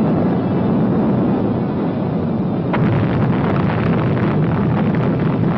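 Missile rocket engine roaring at launch: a loud, steady, crackling roar with no break.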